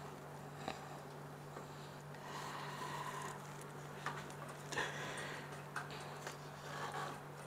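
Faint clicks and rustles of hands working a wire in between the washers on the brass terminal studs of an autoclave's heating element, over a steady low hum.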